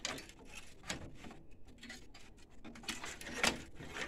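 Irregular clicks and knocks of a printer's metal control-panel housing and its cables being shifted and worked loose over the mainboard, with a louder knock about three and a half seconds in.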